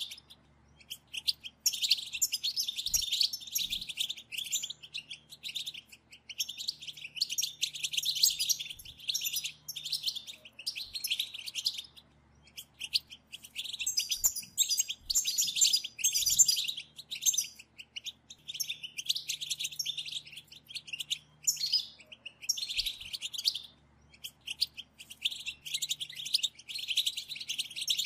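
A group of European goldfinches chattering in bouts of rapid, high-pitched twittering calls, with short pauses between the bouts.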